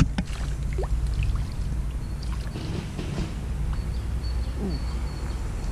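A hooked roach splashing and thrashing at the surface of a pond while it is played on a float rod: a few small water splashes over a steady low rumble.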